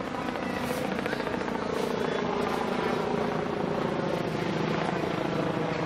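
An engine running steadily: a continuous low drone with several steady tones and no change in pitch.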